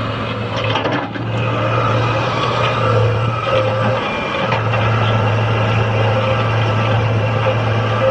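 Fiat-Hitachi excavator's six-cylinder diesel engine running steadily under working load, with a higher whine coming and going above it. The drone drops briefly about four seconds in.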